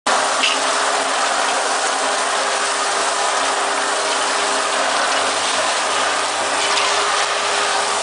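Rotary 30-nozzle bottle washing machine running, its water jets spraying into inverted bottles as a steady hiss over a steady low hum.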